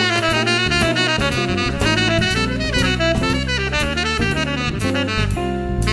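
Small jazz group playing: a saxophone carries a busy, quickly moving melody over electric bass guitar and a drum kit with regular cymbal strokes.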